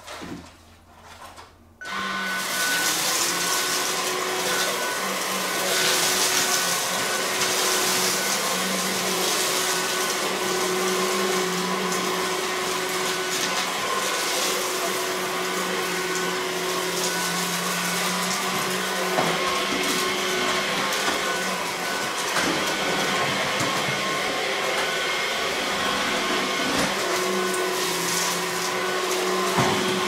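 Cordless stick vacuum switched on about two seconds in, then running steadily while it sucks up pieces of cracker from a rug.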